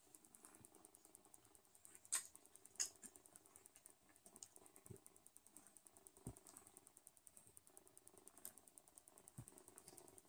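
Faint soft clicks and rustling of newborn Sphynx kittens suckling and an adult cat licking them, with two sharper clicks a little over two seconds in.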